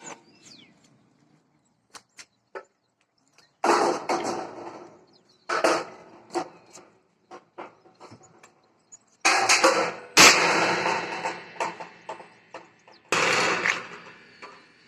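Steel tubing being struck or knocked: about five sharp metallic clanks, each ringing out for about a second, with lighter taps between them.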